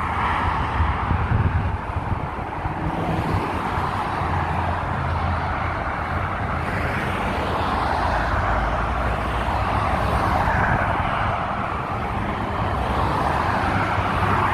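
Steady road traffic noise: a continuous rush of passing cars over a low rumble, with no single event standing out.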